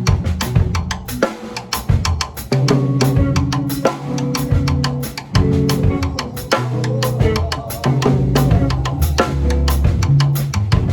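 Instrumental music: a drum-kit beat with kick, snare and rapid hi-hat hits over held bass and keyboard notes that change every second or so.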